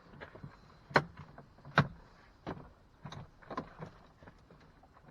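Sharp clicks and knocks of plastic interior door parts being handled and unclipped as the door panel hardware is taken apart. The two loudest come about a second and two seconds in, with lighter taps after.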